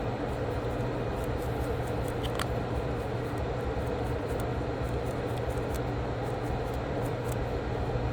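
Steady mechanical hum and hiss of a running fan, with a faint click about two seconds in.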